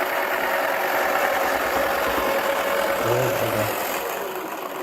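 Toy washing machine's small electric motor running steadily on spin, the clothes pressed against the spinning drum.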